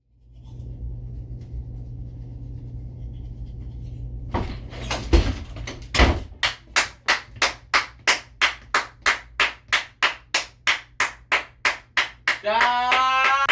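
A steady low hum, then from about six seconds in a steady beat of hand claps, a little under three a second. A voice starts singing over the claps near the end.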